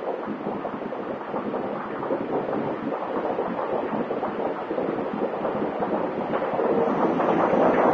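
Steady rush of wind in a test pit blowing over a small DyoCore SolAir wind turbine as its blades spin; the rushing grows a little louder near the end.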